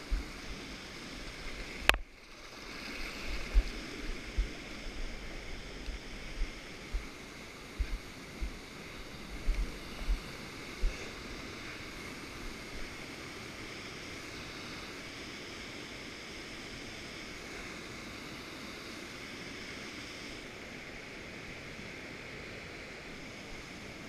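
Steady rush of flowing water from waterfalls. There is a sharp click about two seconds in and scattered low thumps over the first half, and the rushing then runs on evenly.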